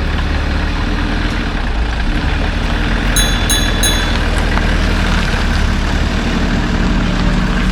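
Converted bus's engine running with a steady low drone. About three seconds in, three short high beeps sound in quick succession.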